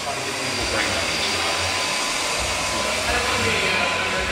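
Hair dryer running steadily on one setting, a loud, even blowing noise.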